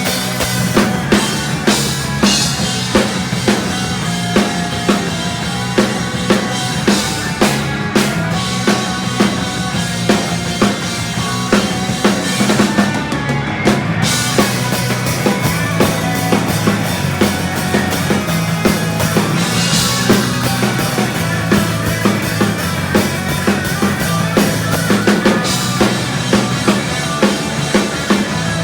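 Heavy speed metal played live by a full band. A drum kit keeps a steady driving beat with bass drum and snare, about two heavy hits a second, under distorted electric guitars and bass.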